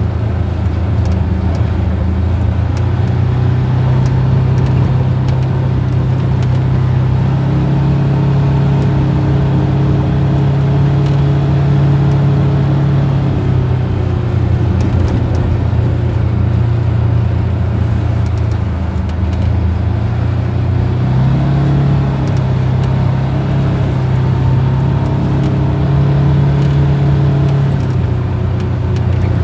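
Vehicle engine running while under way over road and wind noise. Its pitch climbs and falls back twice, once roughly a third of the way in and again about two-thirds through, as the vehicle speeds up and eases off.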